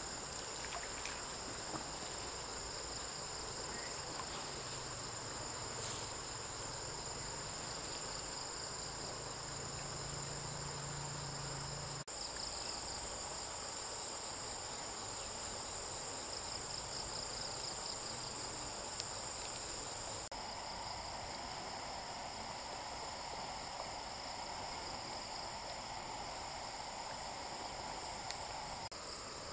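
Steady high-pitched chorus of insects, with a constant hiss beneath. The sound changes abruptly twice, about twelve and twenty seconds in.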